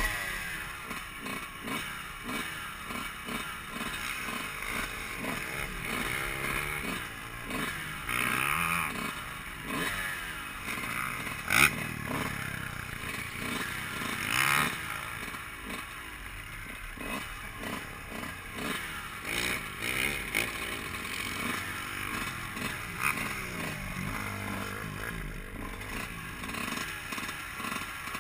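Dirt bike engine running while riding, its revs rising and falling. A sharp clack about a third of the way in is the loudest sound.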